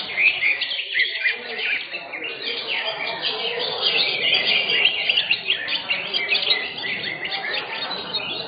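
Several caged greater green leafbirds (cucak hijau) singing at once, a dense, unbroken tangle of quick chirps and whistled phrases overlapping one another.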